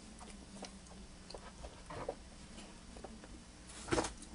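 Faint scattered mouth clicks and lip smacks of someone tasting a cola, then a brief louder sip about four seconds in.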